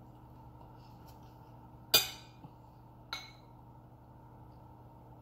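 A metal spoon clinking against a ceramic bowl twice, about a second apart, the first sharper and louder.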